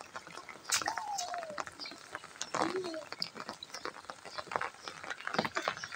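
Steady rain falling on a wet concrete yard, with many small drop taps and splashes. A couple of short, gliding vocal sounds come through, one about a second in and another near the middle.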